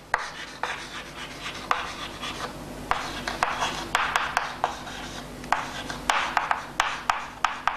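Chalk writing on a chalkboard: scratchy strokes broken by many sharp taps as the chalk meets the board.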